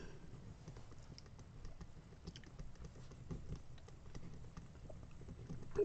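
Faint, scattered light clicks and taps at an uneven pace.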